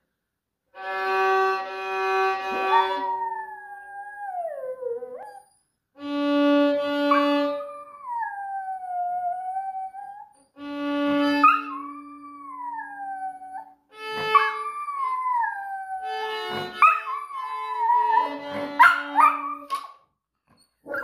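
A Maltese dog howling along to a violin: the violin holds long notes while the dog's howl slides and wavers downward over them, in four long phrases with short breaks between. The dog 'sings' in response to the violin playing.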